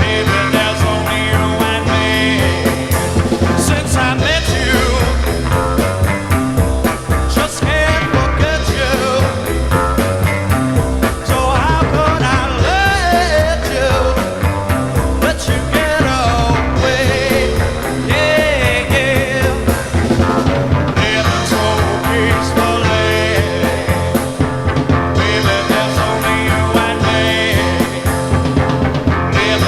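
Heavy psychedelic acid rock recording by a power trio: electric guitar, bass guitar and drums playing together.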